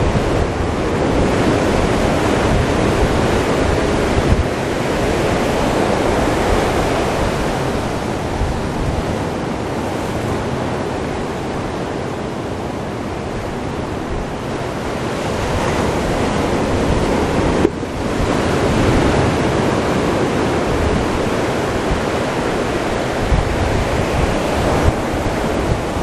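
Ocean surf breaking and washing up a sandy beach, a steady roar of waves that swells and eases every several seconds, with wind buffeting the microphone.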